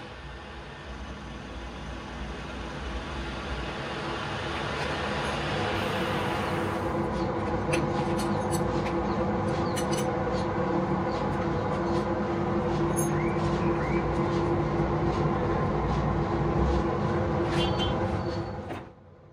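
Hafiz manual metal lathe running steadily while its tool cuts a hardened steel part spinning in a four-jaw chuck. The cutting hiss stops about seven seconds in, leaving the lathe's steady running sound with scattered light ticks, and the sound cuts off sharply near the end.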